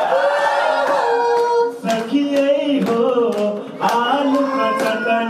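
Live Tharu folk song: a woman's and a man's voice singing through microphones, long held notes, with a drum stroke about once a second.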